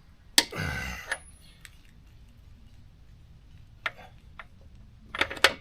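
Metal wrench and socket on a motorcycle's rear axle nut while it is being tightened: a sharp metallic click about half a second in, then scattered light clicks and taps, and a quick run of sharp clicks near the end.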